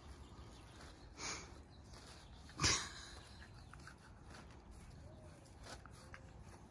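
Black Labrador puppies tussling in play over a plastic bag, with one short loud noise about two and a half seconds in and faint small sounds around it.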